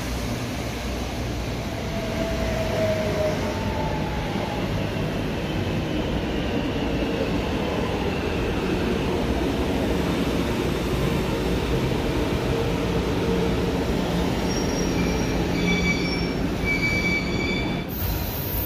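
Metro train pulling into a platform: a steady rumble of wheels and running gear. Several high squealing tones come from the wheels and brakes a few seconds before the end, and a sudden high hiss starts just before the end.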